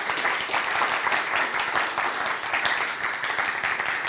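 An audience applauding, many hands clapping together at a steady level.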